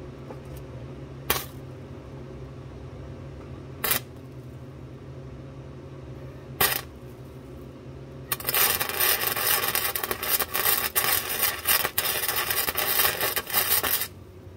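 Wire-feed (MIG-style) welder arcing on the car's underbody sheet metal: three brief tack-weld bursts a few seconds apart, then a continuous crackling weld run of about six seconds that cuts off near the end, over a steady low hum.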